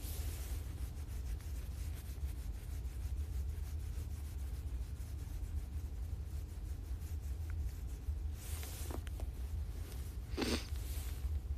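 Fleece jacket collar rustling and rubbing against the phone's microphone, with two louder brushes near the end, over a steady low rumble.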